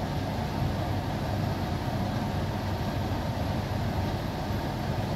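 Steady, even rumbling noise with no other events.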